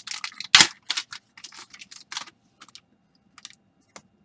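Trading cards being handled and slid against one another, a run of short crisp clicks and rustles. The loudest comes about half a second in, then they get fewer and fainter.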